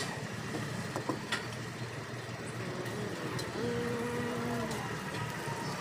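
Street-stall cooking ambience: a steady low rumble, with a few light metallic clicks about a second in, typical of a spatula on a flat iron griddle. A steady hum-like tone holds for about a second a little past the middle.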